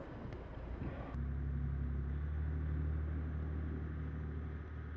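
A motorboat engine droning steadily at a low pitch, starting about a second in after softer rushing noise.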